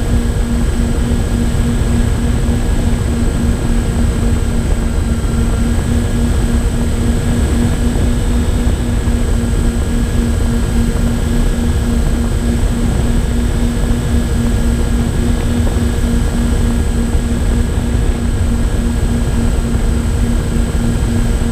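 Twin electric motors and propellers of a MyTwinDream FPV plane running steadily in cruise, with a pulsing propeller drone and a thin motor whine over heavy wind rumble on the onboard camera's microphone.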